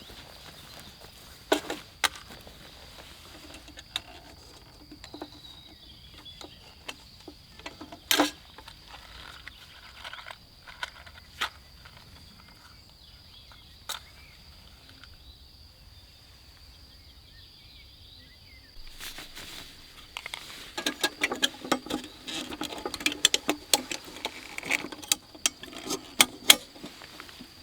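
Scattered sharp taps and clicks over a faint steady high-pitched tone. In the last third it turns into a busy run of rapid tapping and rustling.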